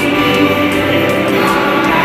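Choir singing a hymn, with long held notes.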